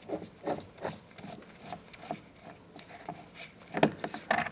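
Phillips screwdriver backing a door-panel screw out: a run of short scraping clicks as it turns, with two louder knocks near the end.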